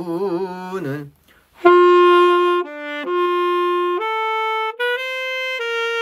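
Alto saxophone playing a short melodic phrase of steady held notes. It opens on one note, dips briefly to a lower one and returns, then steps up twice and holds the last note.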